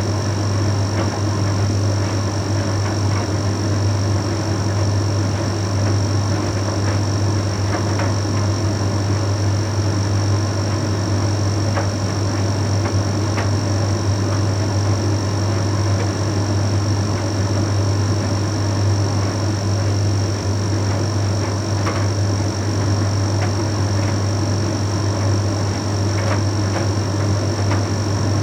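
Bosch Series 6 heat pump tumble dryer running mid-cycle: a steady low hum with an even rushing noise and a thin high whine, broken by a few faint ticks.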